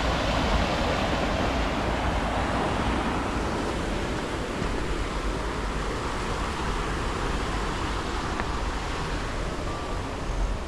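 Steady rushing road and wind noise with a low rumble from a car on the move.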